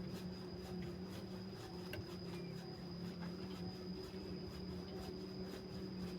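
A steady low hum with a thin, faint high whine above it and a few faint scattered ticks; no birdsong stands out.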